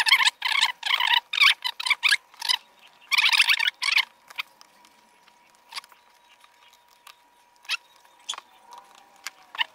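Sharp knife cutting through the stitching of a leather shoe's toe piece: a fast run of short scratchy strokes for about four seconds, then only a few faint clicks.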